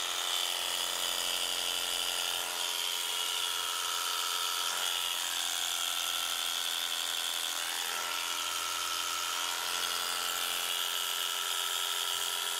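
Clipster electric cow clippers running steadily on a test run after repair, fitted with a new nylon drive gear and a new blade set: a continuous, even buzz.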